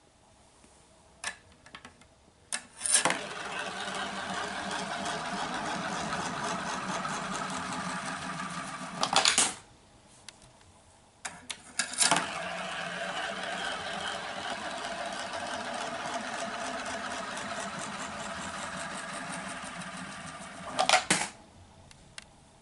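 Coins spinning round the clear funnel of a vortex coin bank, twice. Each time a coin goes in with a click, rolls round and round with a steady whirring rattle for several seconds, then clatters down into the pile of coins at the bottom.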